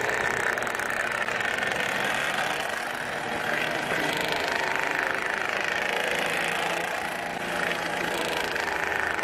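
Tethered model race car's small two-stroke engine running flat out in a high, steady whine as it laps a circular track. The pitch sweeps up and down each time the car passes close by.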